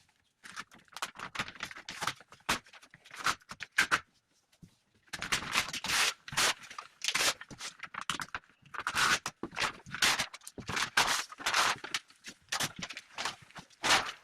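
Unboxing sounds: packaging being handled, with irregular rustling, scraping and sharp crackles in quick bursts.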